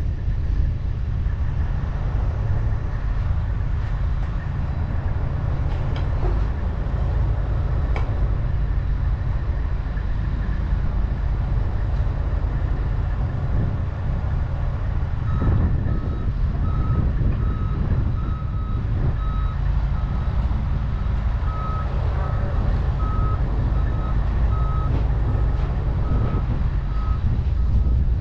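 Volvo compact excavator's diesel engine running close by with a steady low rumble. About halfway through, a high warning beeper starts, sounding in an even rhythm of roughly one and a half beeps a second.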